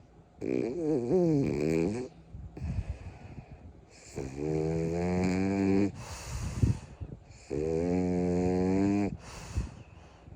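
French bulldog snoring in its sleep: three long pitched snores of about one and a half to two seconds each, the first wavering up and down in pitch, with short noisy breaths between them.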